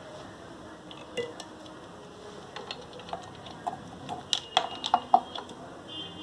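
Scattered small clicks and taps as a small glass bulb is worked out of its plastic holder and the wires at its terminals are handled by hand, with a sharper run of clicks about four to five seconds in.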